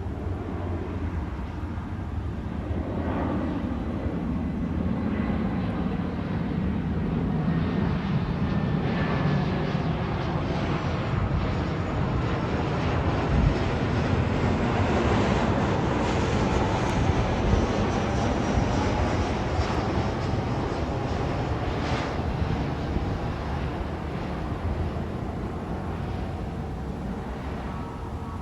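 Jet airliner passing low overhead on approach to land. Its engine noise builds to a peak about halfway through and then fades, with a high whine that slides down in pitch as it goes past.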